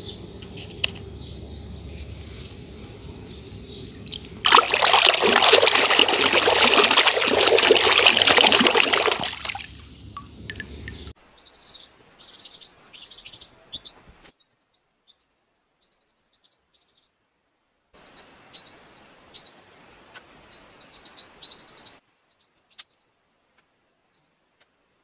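A low hum with a few clicks, then about four seconds in, water running over mud-covered plastic toy animals in a plastic basket for about five seconds. After a cut, a baby chick peeps in quick runs of short high cheeps, twice.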